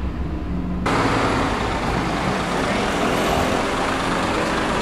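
Road traffic heard from a car: a low engine rumble that about a second in gives way suddenly to a louder, steady hiss of street traffic.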